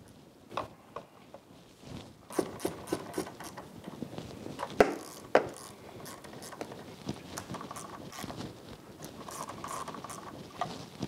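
Hand work on an outboard's ignition coils: scattered plastic and metal clicks and knocks as the coils are pushed back onto the spark plugs and fastened down with a small hand tool. Sparse at first, busier from about two seconds in, with two sharp clicks near the middle.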